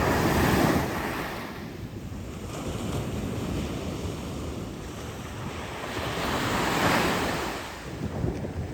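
Pacific Ocean surf on a beach: a wave breaks right at the start and another swells up and breaks about six to seven seconds in, over a steady wash of water, with wind buffeting the microphone.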